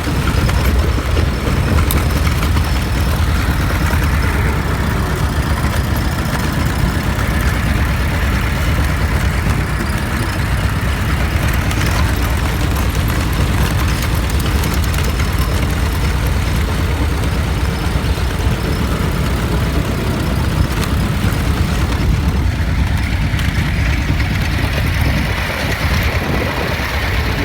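A car engine running at a steady idle, a continuous low rumble that holds even throughout.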